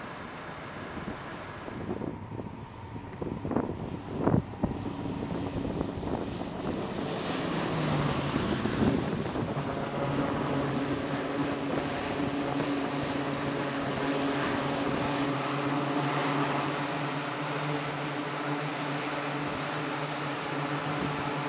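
E-2D Advanced Hawkeye's twin turboprop engines and propellers. After a few seconds of wind hiss and a couple of knocks, a steady propeller drone with a low, even hum builds about seven seconds in and holds as the aircraft lands and stands on deck with its propellers turning.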